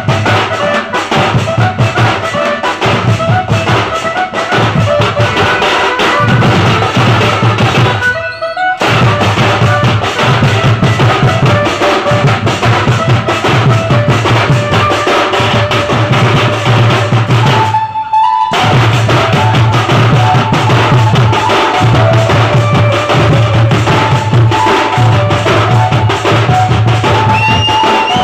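A street band party playing a loud dance tune: a pounding drum beat under a melody line. The music cuts out briefly twice, about 8 and 18 seconds in.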